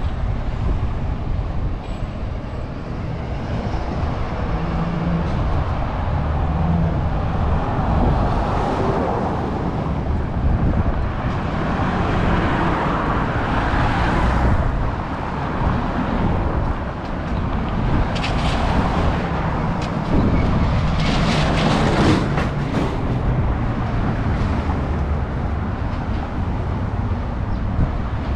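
Street traffic: cars driving past one after another. Their tyre and engine noise swells and fades over a steady low rumble, loudest near the middle and again about three-quarters of the way through.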